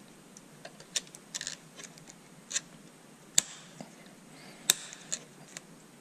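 Scattered sharp clicks and taps as a replacement 40 A cartridge fuse is pressed into its clips inside a Tesla Model S DC/DC converter, with the converter's wiring being handled; two clicks about three and a half and nearly five seconds in are the loudest.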